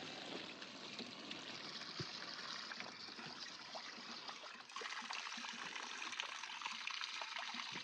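Water trickling and splashing in a steady flow from a small hillside stream, with scattered small splashes; it gets a little louder a bit past halfway.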